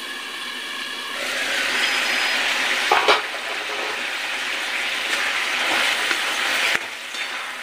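Chopped tomatoes sizzling in hot mustard oil in an aluminium kadai. The sizzle grows louder about a second in, with a few metal spoon knocks against the pan around three seconds as they are stirred. The tomatoes are softening with salt, and the sizzle drops suddenly near the end.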